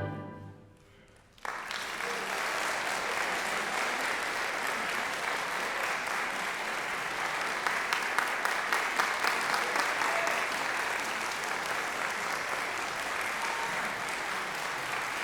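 A concert band's final chord dies away, then after a brief silence an audience breaks into steady applause, with a few sharper claps in the middle.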